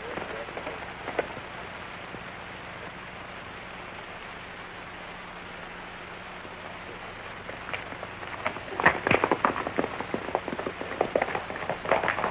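Horses' hooves clattering: a few hoofbeats at the start, then only the steady hiss of an old film soundtrack, then a dense, irregular clatter of hooves over the last four seconds or so.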